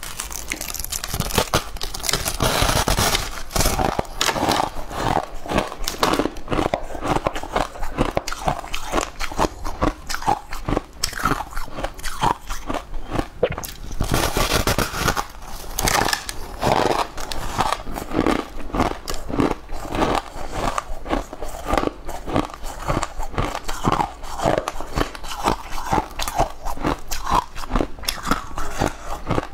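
Biting and chewing a slab of blue ice cake, close to a lapel microphone: a dense, continuous stream of sharp crunches and cracks as the ice breaks between the teeth.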